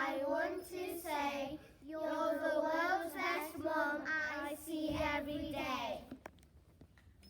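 Young schoolchildren singing a song, in held phrases that stop about six seconds in, followed by a few faint knocks.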